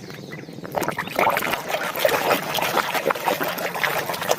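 Water splashing and trickling over a muddy toy animal figure as it is washed clean, picking up about a second in.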